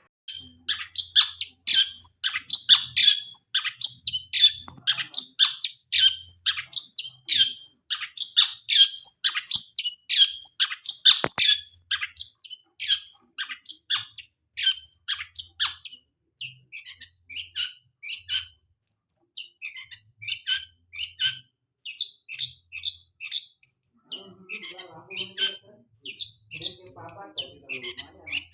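Long-tailed shrike (cendet) song: a fast, dense string of sharp high chirps and chatter that starts abruptly, loudest over the first dozen seconds, then thinner and more spaced out.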